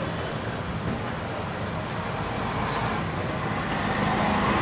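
Steady background noise: a low rumble with hiss running throughout, growing slightly louder near the end.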